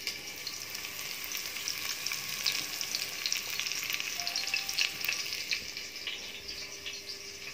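Sliced onions frying in hot oil in a stainless steel pot: a steady sizzle full of small crackles and pops.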